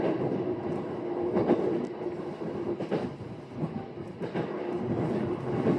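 Train on the Sotobo Line running on rails: a steady hum with a held tone and a few scattered knocks.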